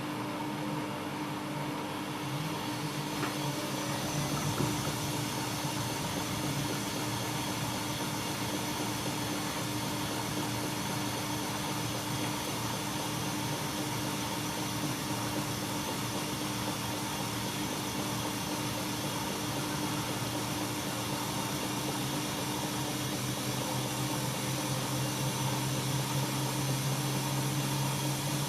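Siemens iQ washing machine running with a steady motor hum, its low hum growing a little louder near the end.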